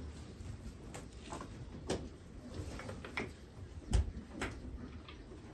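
Handling noises in a stone barn as a cow is held for vaccination: a few sharp knocks and clicks over low shuffling, the loudest knock about four seconds in.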